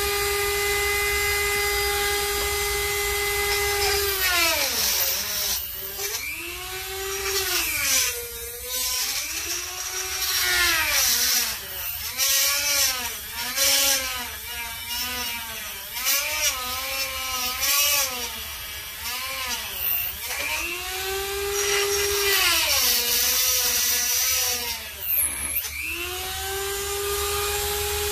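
Corded handheld rotary tool cutting into the edge of a Corvette body panel. It runs free with a steady high whine, then for most of the middle its pitch repeatedly sags and wavers as the bit bites into the material, before running steady again near the end.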